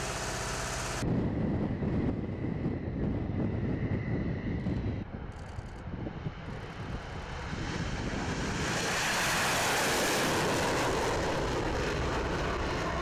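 Fighter jet engines: a low rumble that swells into a loud rushing noise as the jet passes, loudest about ten seconds in. A steady machine hum cuts off about a second in.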